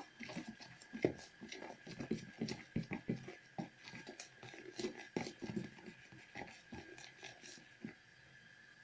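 Metal teaspoon stirring kefir with baking soda in a plastic bowl: irregular soft clicks and wet scrapes as the foaming mixture is mixed, dying away about eight seconds in.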